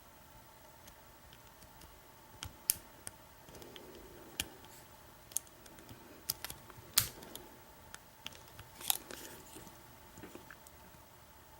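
Small, sharp metallic clicks and light scraping from a lock pick working the pins inside an American 1100 padlock, about a dozen irregular ticks, the loudest near the middle. The lock is held in a false set while the picker probes for a spool pin.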